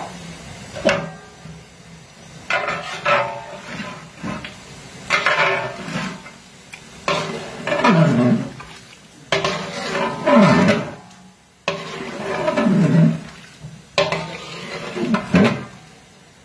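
A metal spatula stirring chicken curry in a large metal pot, scraping along the pot in repeated strokes about every two seconds. Several strokes carry a scrape that slides down in pitch.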